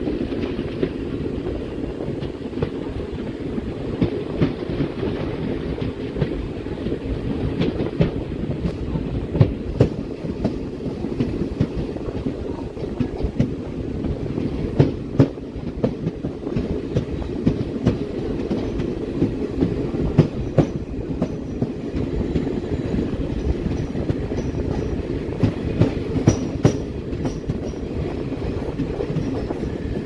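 Passenger train running along the track: a steady low rumble of wheels on rails with scattered sharp clicks and clacks, heard from beside the moving coach.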